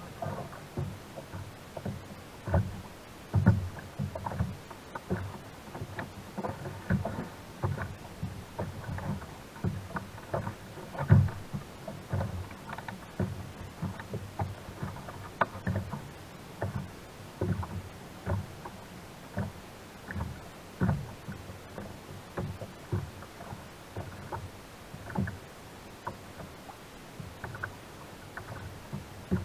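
Small waves slapping and knocking against the plastic hull of a sit-on-top kayak, an irregular run of low thuds and splashes several times a second.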